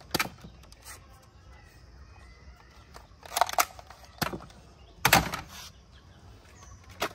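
Plastic toy guns being handled: a handful of short, scattered clicks and knocks, the largest a little after halfway.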